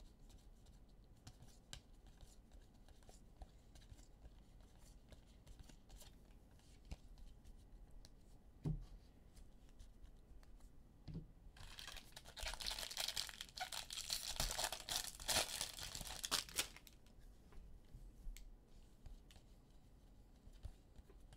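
A trading card pack's foil wrapper being torn open and crinkled, a rustling tear of about five seconds just past the middle. Before it come faint clicks of cards being handled and a couple of soft thumps.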